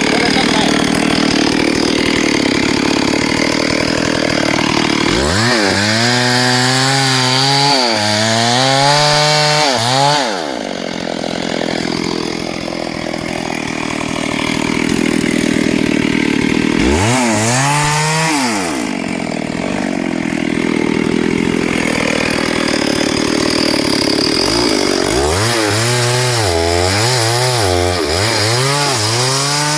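STIHL MS382 two-stroke chainsaw cutting through hardwood at high revs. Three times its engine pitch drops and climbs back up as the revs fall and rise again.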